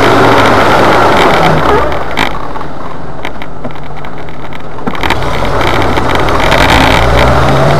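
Jeep Wrangler engine running as it climbs a dirt trail, heard from inside the cab; the engine eases off about two seconds in and picks up again around five seconds, with a few knocks from the vehicle over the bumps.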